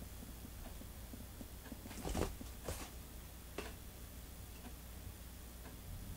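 A kitten scrambling out of a fabric cat tunnel and across carpet to an adult cat's tail: a brief rustling scuffle about two seconds in, then a soft click. A faint steady ticking sounds about once a second underneath.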